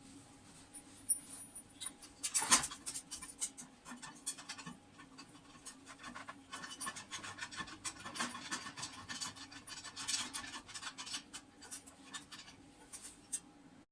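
Hand work on lamp parts: irregular scratching and rubbing with many small clicks, and a sharper knock about two and a half seconds in, over a faint steady hum.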